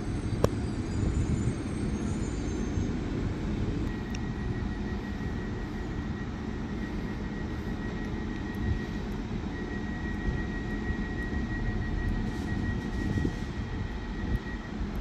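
Diesel multiple-unit trains idling at a station platform: a steady low rumble, with a thin steady high tone from about four seconds in until near the end.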